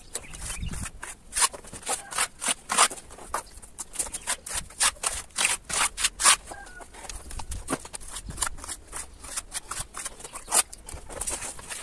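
A fast, irregular run of short scrapes and clicks, as of a hard object rubbing or scraping against a rough surface.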